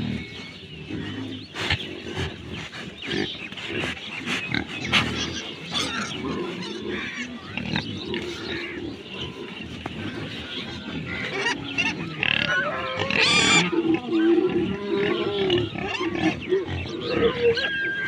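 Several black pigs grunting at close range at a wooden fence, with one short, higher, sharper call about two-thirds of the way in.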